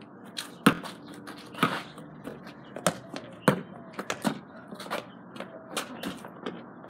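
Basketball dribbled on a hard court: a series of sharp bounces at irregular spacing, roughly one or two a second, the loudest a little over half a second in.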